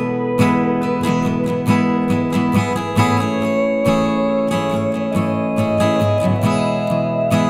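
Background music led by a plucked and strummed acoustic guitar, with notes struck in a steady rhythm.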